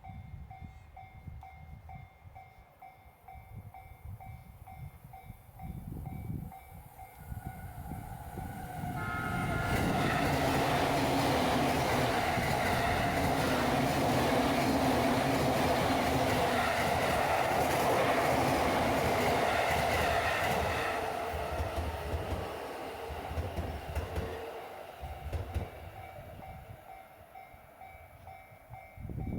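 Japanese level-crossing warning bell ringing a quick, evenly repeated electronic ding while an electric train passes through the crossing. From about ten seconds in to about twenty-one seconds the train's loud rumble and wheel clatter drown the bell, which carries on as the train fades away.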